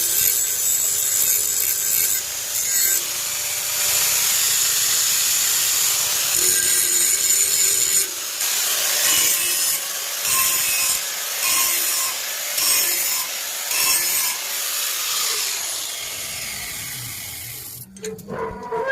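Chopper machine's blade being sharpened by hand: a rasping scrape of metal, continuous at first, then in regular strokes of a little more than one a second, fading away near the end.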